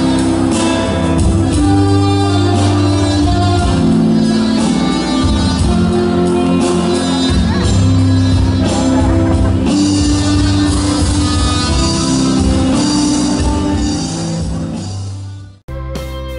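Music playing throughout, fading out near the end, then an abrupt cut to a different tune.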